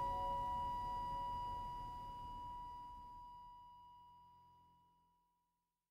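Final note of the background acoustic guitar music ringing and slowly fading out, gone about five seconds in.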